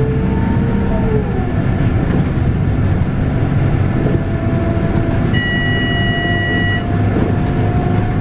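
Scania K280UB bus's 9.3-litre five-cylinder diesel and ZF Ecomat automatic gearbox running, heard from inside the bus. A whine drops away about a second in and a steadier one comes in later. Past the middle, a steady electronic beep sounds for about a second and a half.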